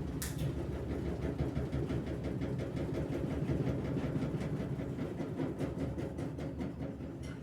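Electrolux top-loading washing machine spinning, with a steady low hum and a fast, irregular rattling and knocking. The rattle comes from parts banging against the cabinet during the spin: the repairer traces it to a loose drain hose knocking in the corner, a loose zinc back cover and a loose suspension rod.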